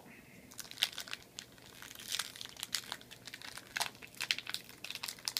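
Foil wrapper of a Pokémon trading-card booster pack crinkling and crackling in irregular bursts as it is handled and opened.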